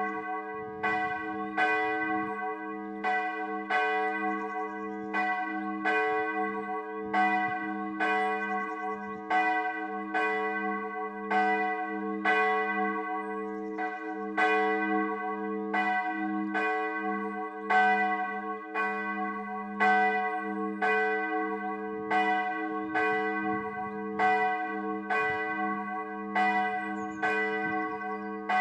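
Church bell ringing in a steady, unbroken series of strokes, each stroke's hum carrying over into the next so the low tone never dies away.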